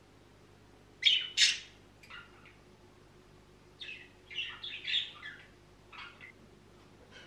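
Small pet parrot squawking and chirping: two loud, short squawks about a second in, a few fainter calls after, then a run of quicker chirps around four to five seconds and one more call near six seconds.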